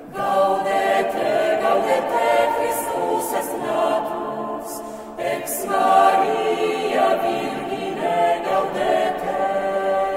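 Unaccompanied choir singing in long held chords, coming in suddenly at the start.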